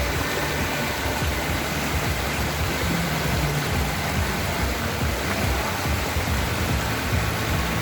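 Steady rush of a mountain stream's flowing water, with quiet background music beneath it.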